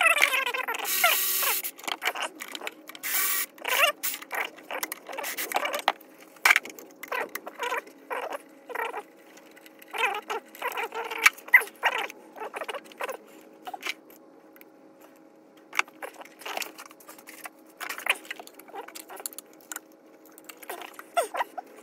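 Scattered metallic clinks, taps and rattles of hand tools, sockets and bolts being handled in a car's engine bay while the intake manifold bolts are being undone. A cordless ratchet whirs briefly at the start.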